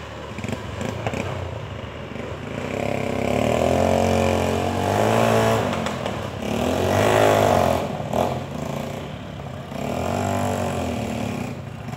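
Trail motorcycle engine revving up and down in about three surges, with the pitch rising and then falling each time. The loudest surge comes about seven seconds in.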